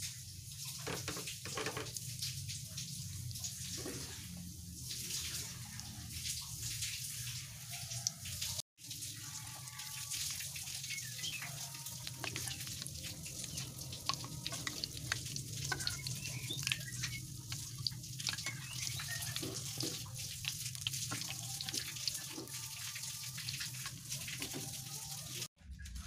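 Potato doughnuts deep-frying in hot oil in a wok: a steady sizzle full of small crackles and pops, over a low steady hum.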